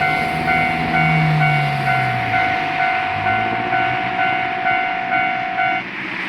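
Japanese railway level-crossing alarm ringing its steady 'kan-kan' about twice a second, then stopping near the end as the crossing clears. Underneath is the low rumble of a diesel train going over the crossing.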